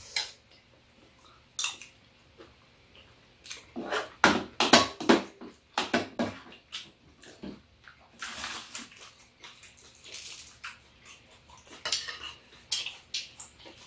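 Metal spoons and chopsticks clinking and scraping against bowls and a stainless steel serving bowl while people eat, in irregular taps that are densest about four to six seconds in. A couple of brief rustles come later.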